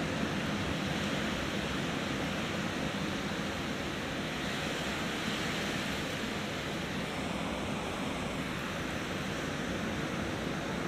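Ocean surf breaking and washing onto the beach, a steady even rush of noise.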